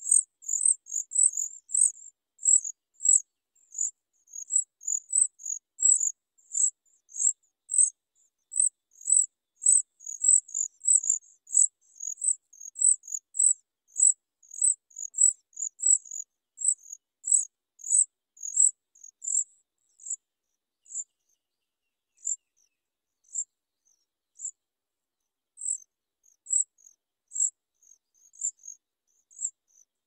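Songbird nestlings begging: a run of thin, very high-pitched cheeps, two or three a second, thinning to scattered single calls in the last third.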